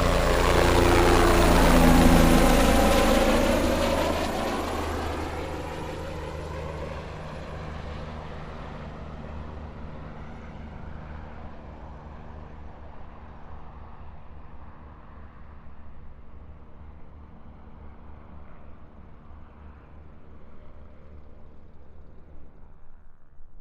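Helicopter flying away after take-off. It is loudest about two seconds in, then its engine and rotor sound fades steadily into the distance until it is faint near the end.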